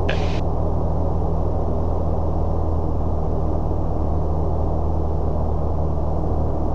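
Steady drone of a Citabria 7ECA's four-cylinder Lycoming engine and propeller in flight, heard through the cockpit intercom, with a short hiss at the very start.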